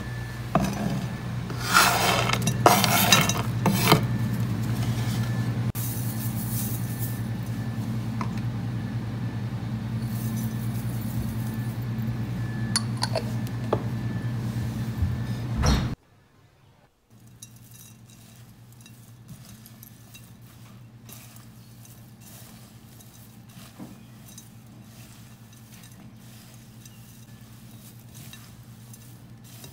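Dry ingredients such as chopped nuts, coconut and dried figs being tipped into a bowl, with a few clinks against the bowl in the first seconds. After a sudden drop in level about halfway, faint scraping and clicking follows as a spatula stirs the dry oat mix. A steady low hum runs underneath throughout.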